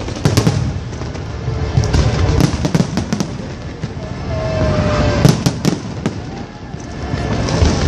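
Fireworks display: aerial shells bursting in a run of sharp bangs over continuous crackling, with a short whistle a little past halfway.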